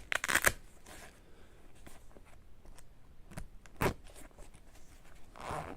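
A zip on a small fabric pouch pulled open briefly at the start, then quiet handling with two sharp clicks of items knocking, and a short rustle near the end.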